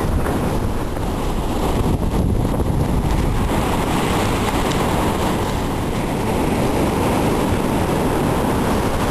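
Ocean surf washing onto a beach, with steady wind buffeting the microphone.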